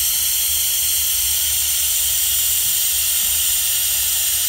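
Air-powered venturi coolant vacuum tool hissing steadily as compressed air rushes through it, drawing the car's cooling system down to a vacuum.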